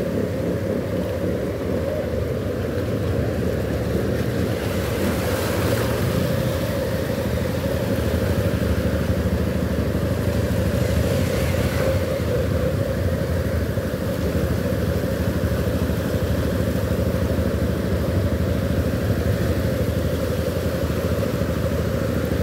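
Motorcycle and car engines running steadily as the vehicles drive through muddy floodwater on a street, mixed with the steady rush and splash of the water.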